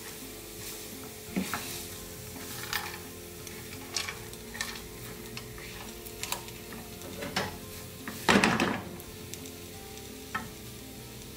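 Spatula stirring and scraping a sticky date and chopped-nut mixture around a nonstick pan in irregular strokes, over a faint sizzle on low heat. The loudest scrape comes about eight seconds in.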